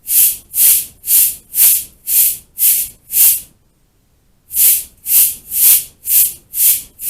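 Cabasa played in a steady rhythm of about two rasping strokes a second, its steel bead chain scraping around the textured cylinder. A run of seven strokes, a pause of about a second, then another run.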